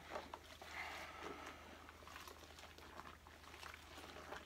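Faint scattered clicks and rubbing from handling and cleaning the plastic base of a canister vacuum cleaner, over a low steady hum.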